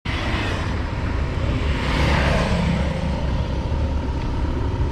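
Road traffic noise: a vehicle passing on the highway, swelling to its loudest about two seconds in, over a steady low rumble.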